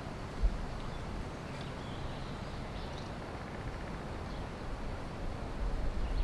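Outdoor ambience: a steady low rumble with faint, short, high chirps of distant birds, and a single dull thump about half a second in.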